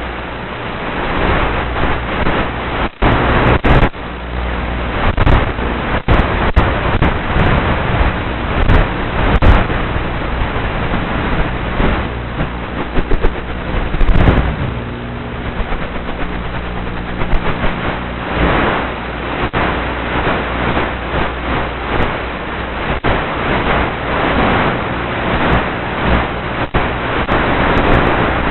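Loud steady rushing noise of a small RC plane in flight, wind over the microphone mixed with the hum of the motor and propeller, broken by scattered sharp clicks and brief dropouts.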